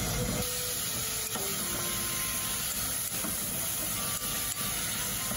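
Bamboo shoot and carrot pieces sizzling in oil in an aluminium pot as they are stirred with a spatula, a steady hiss with a few light clicks of the spatula; the vegetables are being lightly fried to coat them in oil before simmering.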